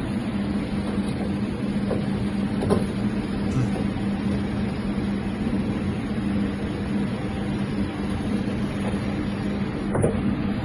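Steady machinery hum with a pronounced low drone and a constant noisy bed, with a few light clicks as plugs are pushed into a power strip.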